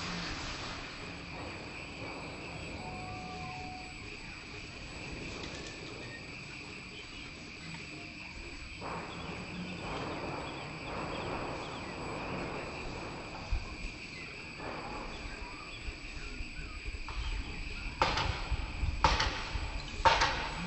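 A steady, high-pitched insect chorus drones without a break. In the last few seconds, three loud bangs cut through it, from workers hammering on tin sheeting.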